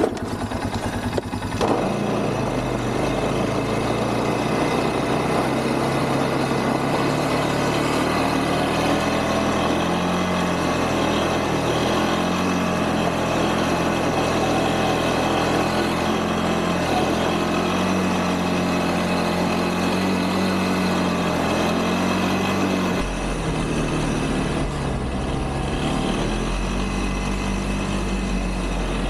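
Quad (ATV) engine running steadily under load as it climbs a snow-covered driveway with a passenger on the back, its note rising and falling a little with the throttle. About 23 seconds in, the sound turns deeper and duller.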